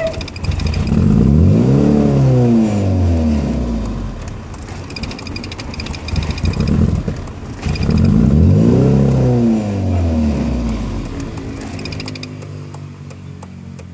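Two motor vehicles go by one after the other. Each engine note rises and then falls in pitch as it passes, the first about a second in and the second about eight seconds in. The sound fades away near the end.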